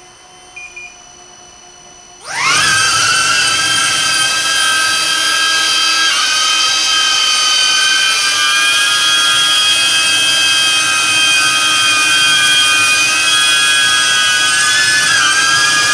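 DJI Avata 1 FPV drone's motors and five-blade propellers spinning up about two seconds in to a loud, steady, high whine with several tones stacked together. Near the end the pitch starts to fall as the props spin down.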